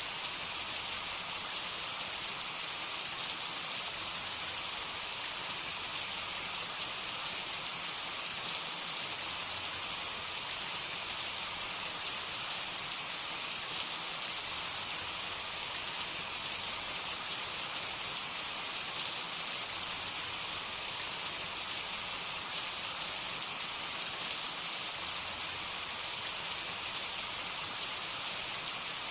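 Hot oil sizzling steadily with scattered small crackles as food fries in a pan.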